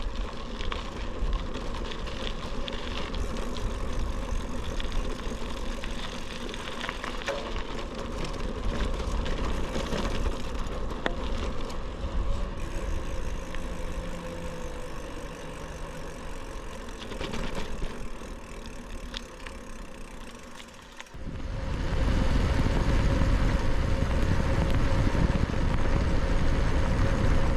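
Riding noise from a bicycle, picked up by a GoPro Hero 12 Black whose microphones are covered with dead-cat windscreens: steady tyre and road rumble with wind. About three-quarters of the way in, the low rumble suddenly gets much louder and stays loud.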